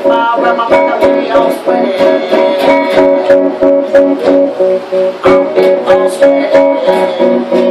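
Guitar music: plucked and strummed guitar notes in a quick, steady rhythm of about four strokes a second.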